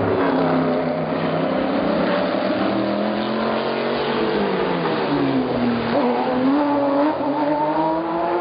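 Several sports racing car engines coming into a turn, their pitch falling as they slow. From about six seconds in they accelerate out with the pitch rising.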